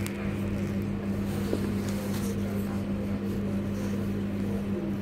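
Steady electric hum of a London Midland Class 323 electric multiple unit, heard from inside the carriage, as the train draws to a stop at a station platform.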